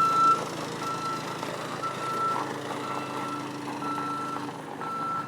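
Reversing alarm beeping evenly, about once a second, over a machine's engine running.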